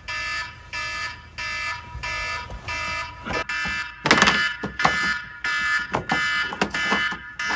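Smartphone alarm beeping over and over, about two beeps a second. Partway through come knocks and clatter as the phone is fumbled against its wooden shelf.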